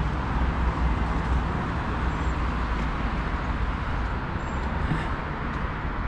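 Steady street traffic noise: cars running along a busy road with a low rumble of engines and tyres.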